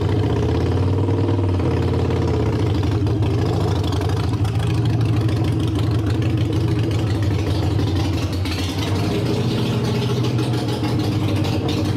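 Harley-Davidson Sportster Iron 883's air-cooled 883 cc V-twin running steadily at low revs as the bike is ridden slowly.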